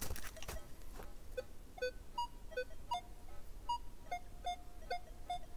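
Metal detector giving target tones as it is swept over a large silver coin buried deep in soil: a run of short beeps, several a second, switching between a low pitch and two higher ones, with a few held a little longer. The mixed tones are the detector calling the deep target partly iron, partly non-ferrous.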